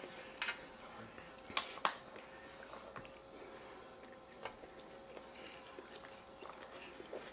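Quiet eating sounds: plastic forks clicking and scraping in foil takeout trays, and chewing. A few sharper clicks come about a second and a half and two seconds in, over a faint steady hum.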